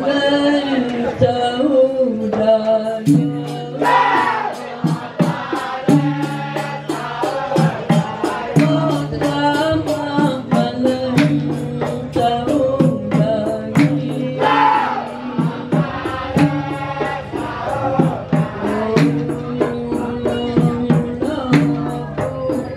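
Men singing a Kelantanese dikir barat song, a strong solo voice with sliding phrases over a fast, steady beat of hand percussion and rattles that starts about three seconds in.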